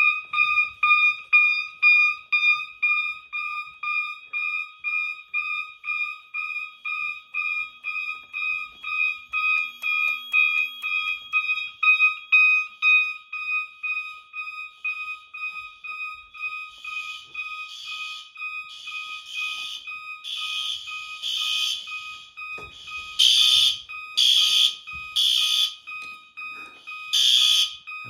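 System Sensor MASS ADA fire alarm horns sounding a 1200 Hz tone, coded by the panel into march time: steady pulses about twice a second. About halfway in, a second, harsher horn gets louder, sounding in groups of three pulses with a pause between groups.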